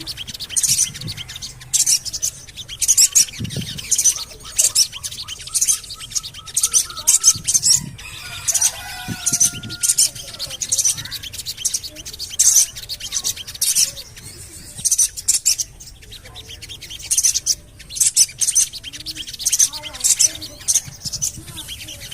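Sogon bird calling: short, sharp, high 'cuit' chirps repeated in quick bursts, the kind of call used as a lure to set caged sogon birds singing, with some softer lower warbling in the middle.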